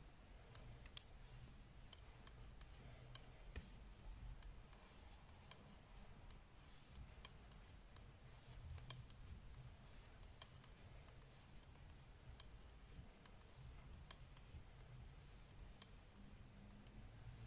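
Faint, irregular clicking of metal-tipped Knit Pro knitting needles tapping together as stitches are purled one after another, over a quiet low room hum.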